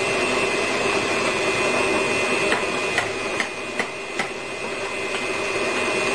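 Electric mixer motor running steadily with a constant whine, beating chocolate cake batter, with about five light knocks of a spatula against the bowl around the middle.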